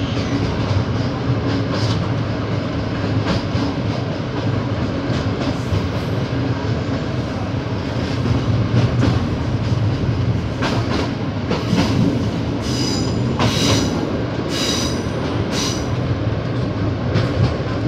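A passenger train running, heard from aboard: a steady low rumble and hum with clicks of the wheels over the rails. Past the middle, the wheels give several short high-pitched squeals.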